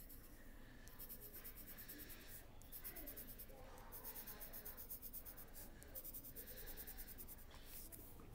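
Graphite pencil scribbling on paper, quick back-and-forth strokes shading in small circles, in short spells with brief pauses between them. Faint.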